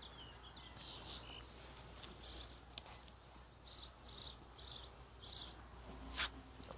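Faint high-pitched chirps of outdoor wildlife, recurring every second or so, with a sharp click about six seconds in.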